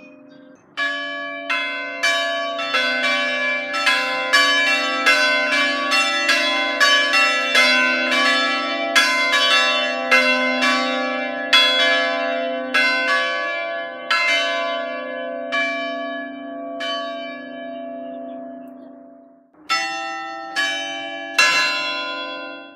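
A peal of three bronze church bells in C, cast by Mazzola in 1845, swung full-circle by electric motor in the Ambrosian style, clanging in a dense tumble of overlapping strokes, three or four a second. The strokes thin out and fade almost to nothing, then a few more strokes come and the sound cuts off abruptly. The smallest bell is out of tune, by the sacristan's account.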